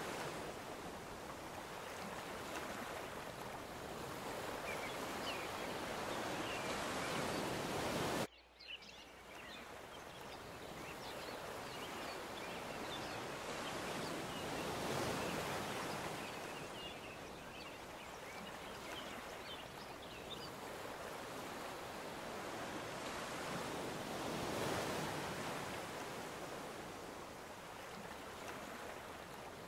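Ocean surf breaking on the shore, a steady wash that swells and eases every several seconds. It drops out abruptly for a moment about eight seconds in, then comes back.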